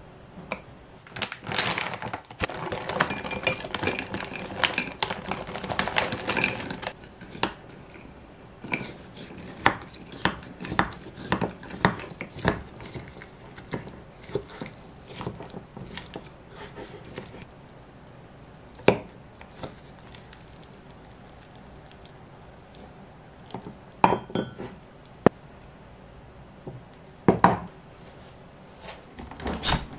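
A wooden spoon stirring and scraping thick yogurt with frozen blueberries in a glass jar, with a dense run of clicks and scrapes at first. After that come scattered clinks and a few sharp knocks of glass against the table.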